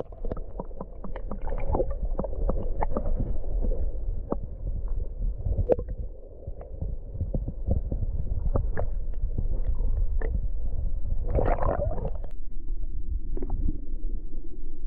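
Stream water heard through a submerged camera: a muffled low rumble and gurgle with many small clicks and knocks, and a louder rush of noise about eleven seconds in.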